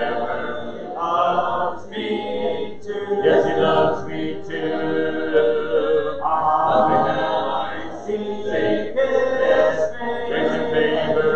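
Church congregation singing a hymn a cappella, many voices together with no instruments.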